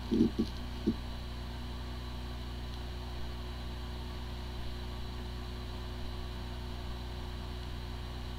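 A hard drive spinning with a steady hum and whine, with a few short low knocks in the first second. It sounds like a healthy drive, but the drive has corrupted disk firmware and the computer cannot detect it.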